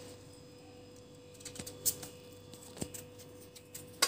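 Quiet handling of cut pumpkin pieces on a ceramic plate: a few faint taps and clicks, with a sharper click near the end as a knife cuts a piece, over a faint steady hum.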